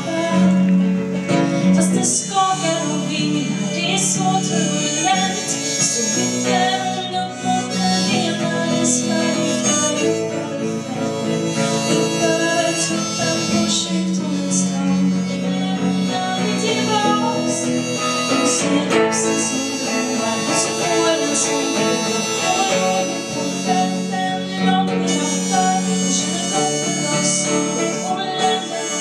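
Harmonica played from a neck rack, carrying the melody over a hollow-body archtop guitar accompaniment, with no singing.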